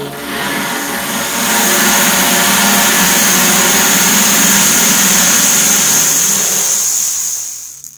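Loud rushing noise with a low drone beneath it in a soundscape track. It starts suddenly, swells over the first two seconds, holds steady, then fades out near the end.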